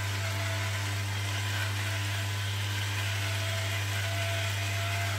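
Electric salt grinder's small motor running steadily for about five seconds over a pan of seafood sizzling on the hob, then stopping just before the end.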